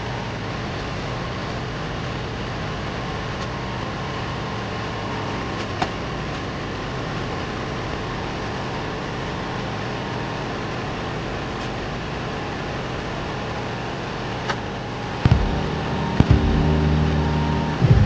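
Liebert computer-room air conditioning unit running: a steady rush of air with a low hum, and a single click about six seconds in. Near the end it gets louder, with several sharp clicks and steady pitched tones.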